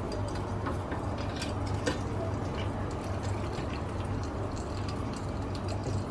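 Hot air-fried pork ribs sizzling in the air fryer basket, with scattered small crackles and pops over a steady low hum.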